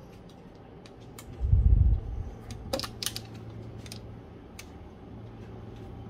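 Samsung air conditioner indoor unit running its blower on the lowest fan setting, a steady low hum with scattered light clicks and ticks. A brief low rumble comes about one and a half seconds in.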